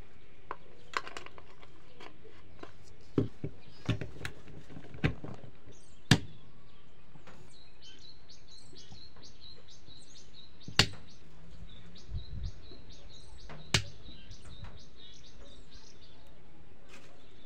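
Sharp plastic clicks and knocks from an LED bulb being fitted into a bayonet lamp holder and the parts being handled on a table, about a dozen in all. Birds chirp in the background, with a quick string of short high notes in the middle.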